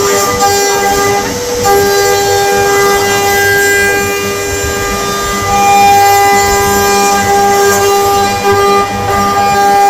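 Spindle of a five-axis CNC machining centre running with a steady, loud whine, dipping briefly a few times.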